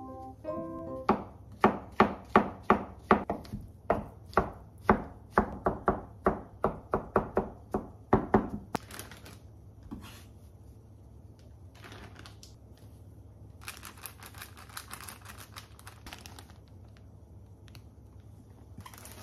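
Kitchen knife chopping mushrooms on a plastic cutting board: a quick run of sharp knocks, about three a second, for some seven seconds. Then softer, irregular rustling of plastic zip-top bags as the chopped mushrooms are handled.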